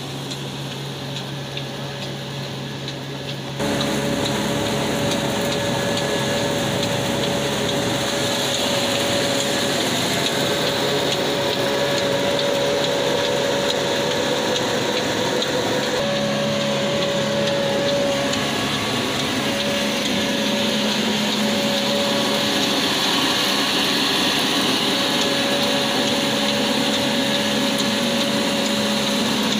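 An old black diesel engine (a 'Kala' Ruston-type) running steadily and driving a wheat grinding mill through a long flat belt, the mill grinding with a steady mechanical noise. It gets suddenly louder about three and a half seconds in.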